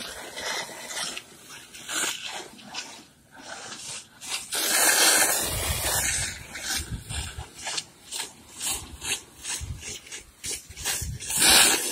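Hose-fed spray wand hissing in uneven bursts as it sprays white shading paint onto a greenhouse's plastic-film roof. The loudest rush comes about five seconds in.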